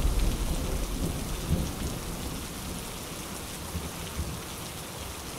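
Steady hiss of rain with irregular low rumbles of thunder, dying away over the first couple of seconds and then holding at a lower level.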